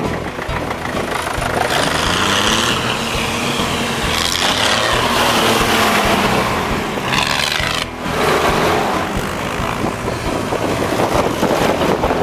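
Vintage farm tractor engines running as a line of tractors drives past one after another, a Farmall passing close in the first few seconds, its pitch gliding as it goes by.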